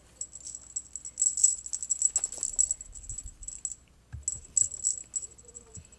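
Cat teaser toy jingling and rattling in quick, irregular bursts as a cat grabs, bites and kicks at it, with a brief lull about four seconds in.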